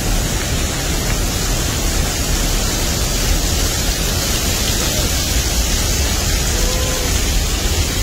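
Pailón del Diablo waterfall heard from right beside it: a loud, steady rush of falling water and spray, heaviest in the deep low end.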